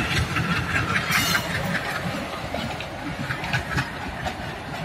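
Twin ALCO diesel locomotives running under load as they accelerate away with their train; a rhythmic engine sound that slowly fades as they pull off.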